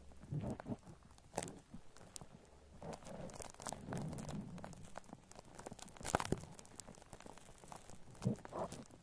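Shaving cream foam squished and rubbed close to a binaural microphone: irregular crackles and small squelches, with one louder click about six seconds in.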